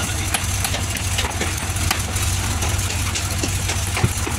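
A steady low engine hum with scattered light knocks and clatter from the timber and steel slab-shuttering frame being handled. A sharper knock comes about four seconds in, as a claw hammer is brought to the frame.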